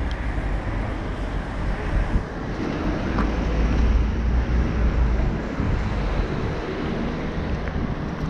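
Wind rumbling on the microphone over steady outdoor background noise, a little louder around four to five seconds in.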